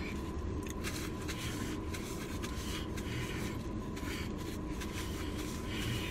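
Eating sounds: short, irregular crunches and rustles of fries being chewed and handled, over a steady low hum.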